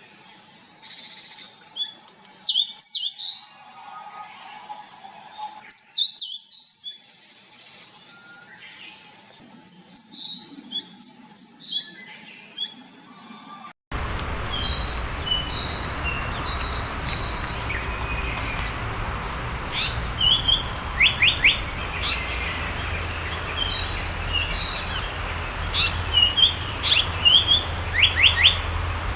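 Eastern crowned warbler singing its short high song phrase three times. Halfway through, the recording cuts to a Japanese paradise flycatcher singing scattered short notes and quick descending phrases, over a steady low hum.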